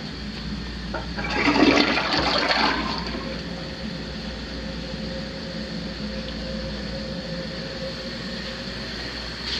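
Toilet flushing: a loud rush of water about a second in that lasts about two seconds, then the tank refilling with a steady hiss and a faint steady tone from the fill valve.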